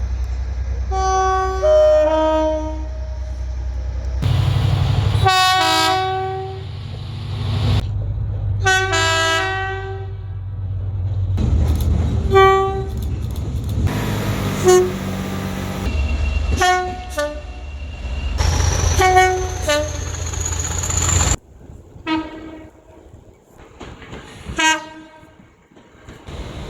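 Train horns sounding in a rapid succession of separate blasts from different trains, cut one after another. Many are two-tone horns stepping from a higher note to a lower one. A low rumble runs under most of them and drops away about three quarters of the way through.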